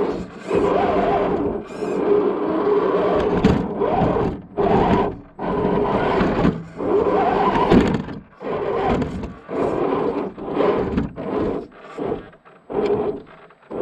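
Axial SCX10 II RC crawler's electric motor and gear drivetrain whining in repeated short bursts of about a second, stopping and starting as the throttle is blipped, the pitch rising and falling with motor speed.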